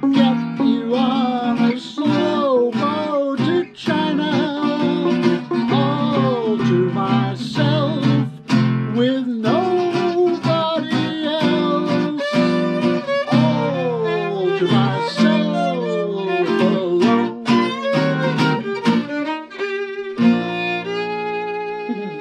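Violin and acoustic guitar playing swing: the violin takes the melody with sliding notes over strummed guitar chords. They close on a held final chord about twenty seconds in.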